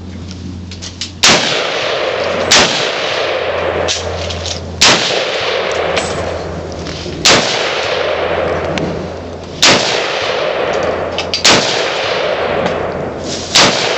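Bushmaster AR-15 rifle firing about seven single shots, spaced one to two and a half seconds apart. Each is a sharp crack with a long echoing tail.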